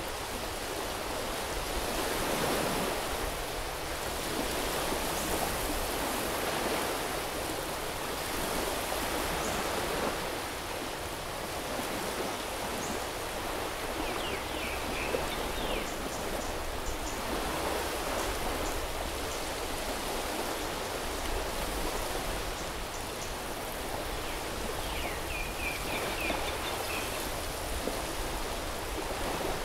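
Sea surf washing onto a beach: a steady hiss of breaking water that swells and eases every few seconds. Two brief runs of high chirps come through, about halfway and near the end.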